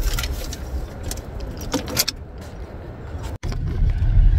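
Short clinks and jangling of small hard objects handled inside a car, over the car's low cabin rumble. About three and a half seconds in, the sound drops out for an instant, then a louder, steady low rumble follows.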